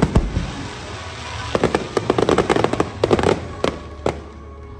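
Aerial fireworks bursting: a sharp bang right at the start, then a dense run of crackling pops from about a second and a half in, and two more single bangs near the end, with music underneath.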